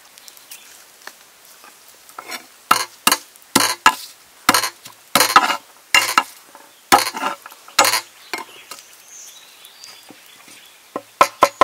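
A cleaver cutting garlic cloves on a wooden chopping board: a run of uneven strokes, then, near the end, quick even chopping begins.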